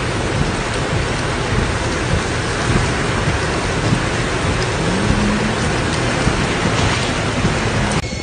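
Heavy rain pouring down in a loud, steady hiss with a low rumble underneath. It cuts off suddenly near the end.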